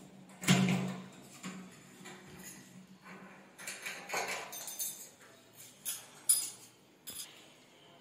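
Metal clinks and knocks from a Europa door lock's steel knob and latch parts being handled and fitted into the bored hole in a door. The loudest knock comes about half a second in, followed by scattered clinks and taps.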